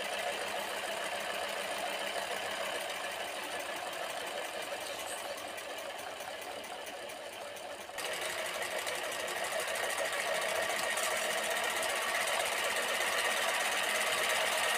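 Homemade steam-driven engine running and spinning an alternator through a flat belt, giving a steady mechanical whir. It gets a little louder from about eight seconds in.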